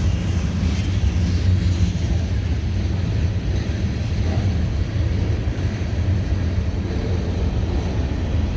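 Freight train cars rolling slowly past, a steady low rumble of steel wheels on the rails.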